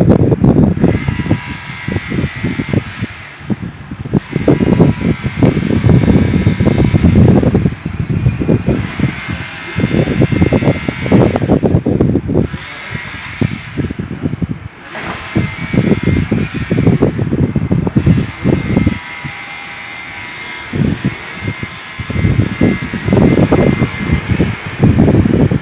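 Demolition hammer chipping concrete in repeated runs of a few seconds each, separated by short pauses, with a steady high whine underneath.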